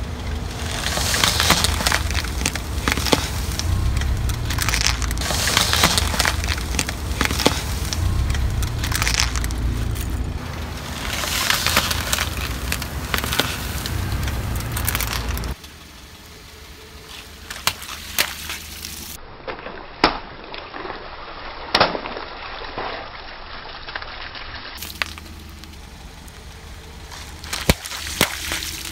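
A car tyre rolls slowly over a block of floral foam stuck with wooden skewers, and the skewers crack and snap under the wheel over a steady low rumble from the car. After an abrupt cut about halfway, it is quieter, with a few single sharp cracks as the tyre crushes plastic bottles and balloons. Near the end water splashes out of a burst container.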